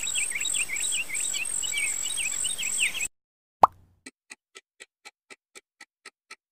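Quick high chirping calls over a steady high-pitched whine, cut off abruptly about three seconds in. After a moment of silence comes a single cartoon pop, then an even countdown ticking at about four ticks a second.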